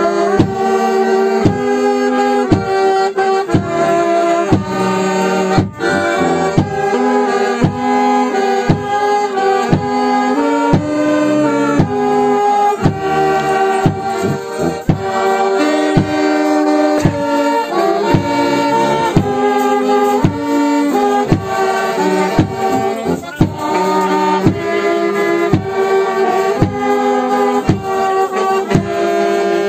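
Small brass band playing a lively folk tune, trumpets and saxophone carrying the melody over a steady bass-drum beat.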